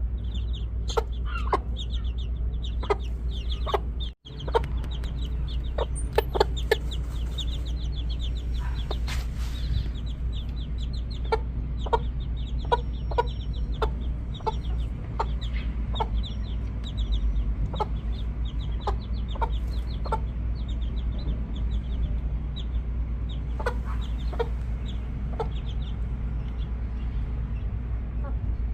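Backyard chickens clucking, with many short, sharp calls scattered over a steady low rumble.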